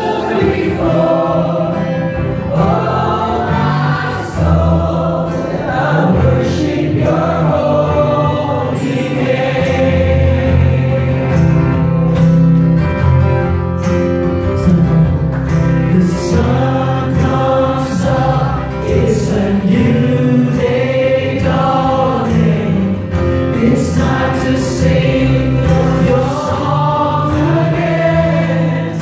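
Live worship music: a congregation singing together with a worship leader, over an acoustic guitar, with sharp percussive strikes recurring through it.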